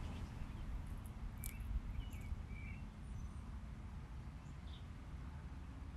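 Outdoor ambience: a low steady rumble with a few faint, short bird chirps, most of them between one and a half and three seconds in.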